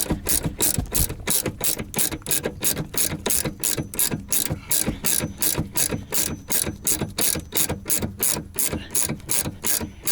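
A 14 mm ratcheting wrench clicking in quick, even strokes, about four a second, as it runs the nut off the upper mount of a rear shock absorber.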